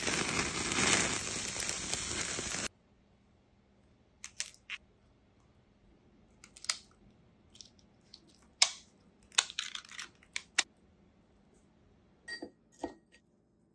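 For the first few seconds, lobster tails sizzle and charcoal crackles under them on the grill, an even, loud noise that cuts off abruptly. Then come sharp, scattered cracks and snips as kitchen shears cut through raw lobster tail shells, with a few clicks as wooden skewers are pushed through the tails near the end.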